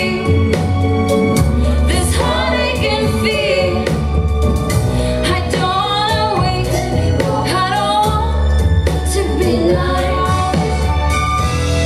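Pop music with female singing over a steady bass line.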